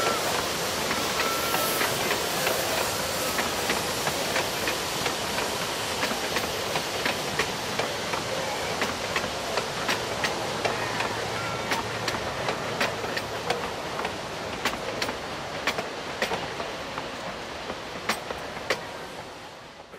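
Narrow-gauge passenger carriages rolling past, their wheels clicking over the rail joints, the sound fading as the end of the train moves away.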